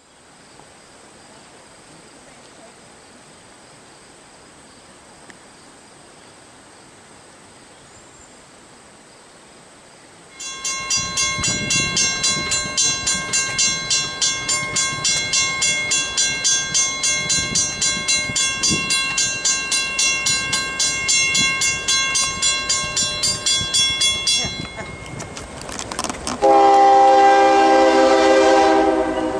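Grade-crossing warning bell ringing in rapid, even strikes, about three a second, starting about ten seconds in and stopping near 25 s. Near the end a Norfolk Southern diesel locomotive's air horn sounds loudly as a held chord of several notes.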